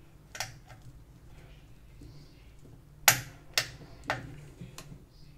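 Sharp clicks and taps of small screws and a screwdriver against the drone's hard plastic body as the screws are fitted: two small clicks near the start, then a loud one about three seconds in, followed by three more about half a second apart.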